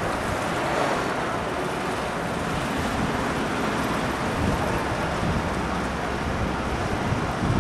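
Sandstorm wind blowing steadily, buffeting the microphone with a low rumble.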